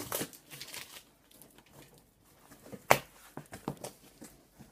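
Cardboard box being torn open by hand: tearing and scraping of cardboard, a sharp snap about three seconds in, then a few lighter knocks and clicks of cardboard.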